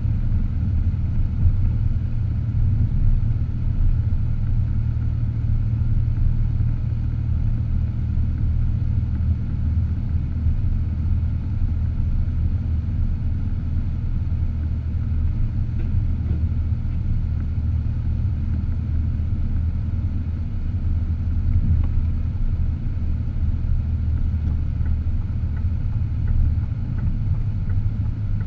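A car driving: a steady low rumble of engine and road noise with no sudden changes.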